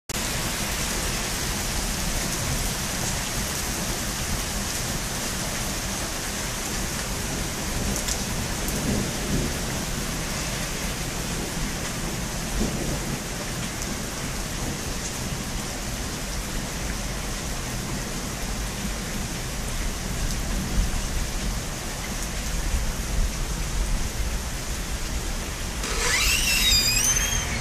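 Steady rain falling in a thunderstorm, with a low rumble of thunder underneath. Near the end a short high warbling call sounds over the rain.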